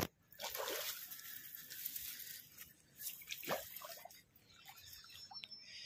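Hooked fish thrashing and splashing at the water surface, with a long splash in the first couple of seconds and another about three and a half seconds in. A sharp click right at the start.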